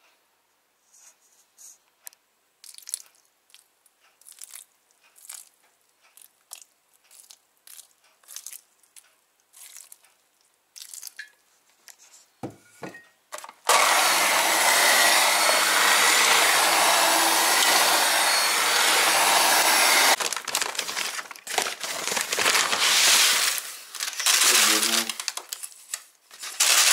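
Siemens electric hand mixer beating a crumbly bread dough of grain and flour. It runs steadily for about six seconds, starting and stopping abruptly about halfway through. Scattered light clicks and rustles come before it, and irregular clattering and rustling come after it.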